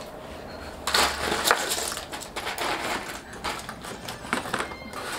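Chopsticks clicking and scraping among a box of candied sweets, the pieces rattling against each other and the box in irregular clatters, busiest about a second in.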